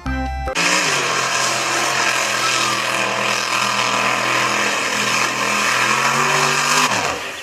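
A mud-bog truck's engine running at high revs as it ploughs through a mud pit, over a steady hiss of spraying water and mud. The engine note falls away near the end.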